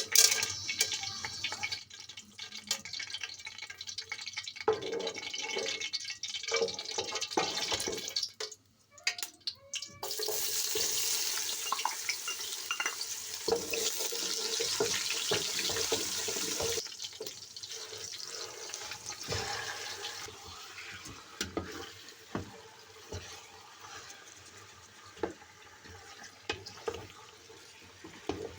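Water running from a kitchen tap into a sink while food is washed, with scattered knocks and clatter. The flow is heaviest for several seconds from about ten seconds in.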